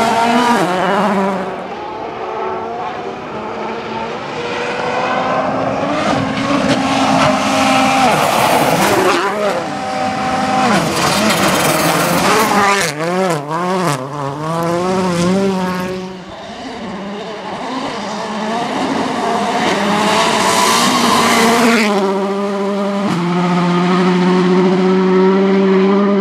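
Volkswagen Polo R WRC rally car's 1.6-litre turbocharged four-cylinder engine revving hard as the car passes on gravel, the pitch climbing and dropping through gear changes. About halfway through, the revs rise and fall quickly several times, and near the end the engine holds a steady high note.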